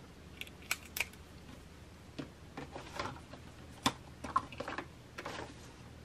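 Scattered light clicks and short rustles of a small plastic spool of beading wire and the stiff wire being handled on a bead mat.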